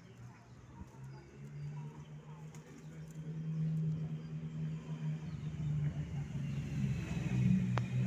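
Steady low hum of a vehicle engine running close by, growing louder about three seconds in, with faint bird chirps above it.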